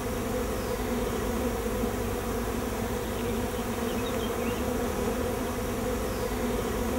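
Honeybees buzzing around an opened hive: a steady, even hum.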